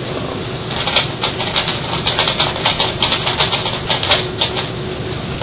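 Plastic budget 3x3 speed cube being turned quickly by hand: a rapid run of light clicks from its layers, over a steady low hum.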